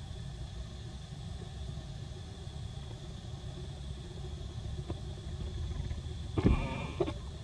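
Steady low outdoor rumble with a faint high steady tone over it, and a brief high-pitched call about six and a half seconds in.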